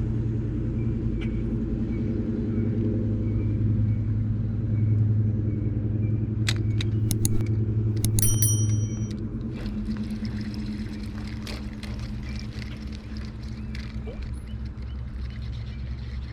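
An engine running steadily with a low hum, which drops in level about nine seconds in. A few sharp clicks and a brief high tone come shortly before the drop.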